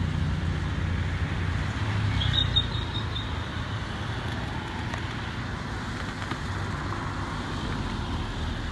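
A motor vehicle's engine running with a steady low hum, over a background of roadside noise. A brief high chirp sounds about two and a half seconds in.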